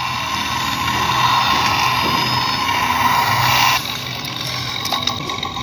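Toy excavator's small electric motor and plastic gearbox whirring steadily as the arm lowers the bucket, cutting off suddenly about four seconds in.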